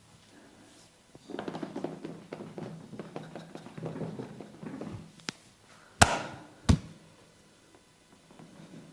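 Massage hands rubbing and pressing on skin for a few seconds, a soft rustling, ticking texture. About six seconds in come two loud, sharp hand smacks less than a second apart.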